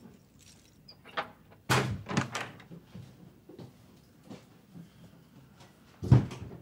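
A heavy thump about two seconds in, quickly followed by two or three lighter knocks, then another loud thump near the end.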